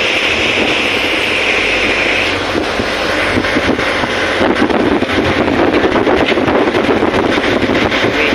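Boat under way with its engine running steadily, and wind buffeting the microphone.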